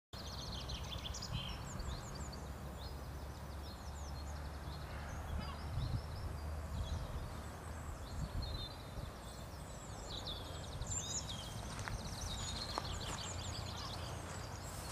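Small songbirds singing in quick chirps and trills over a steady low rumble.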